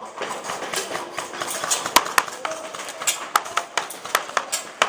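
Airsoft guns firing in a game: irregular sharp snaps of shots and BB hits, several a second.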